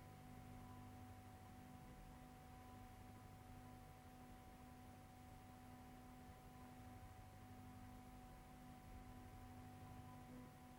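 Near silence: a faint steady hum with a few thin held tones over low hiss.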